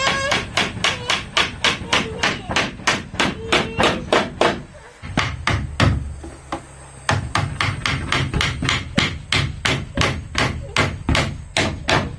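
Hammer driving a nail into a wooden wall plank with quick, steady blows, about three a second, with a short pause about five seconds in.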